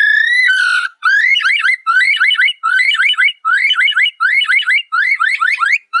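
Superb lyrebird mimicking an electronic alarm: one held, slightly rising note, then repeated groups of fast rising whistled sweeps, about one group every 0.7 seconds.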